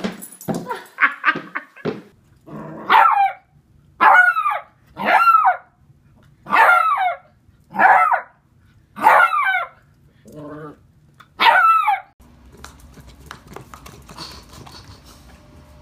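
Beagle puppy barking repeatedly, about eight sharp barks roughly a second apart, one of them softer and lower near the end.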